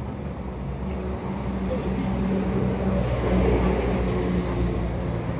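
A motor vehicle's engine passing close by, its hum building to a peak about halfway through and then fading.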